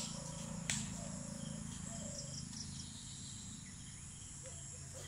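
Steady high-pitched insect chorus from the surrounding trees. Two sharp clicks in the first second are badminton racket strikes on the shuttlecock during a rally.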